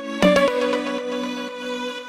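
Background music: sustained synth-like chords with a few new notes struck, no workshop sounds standing out.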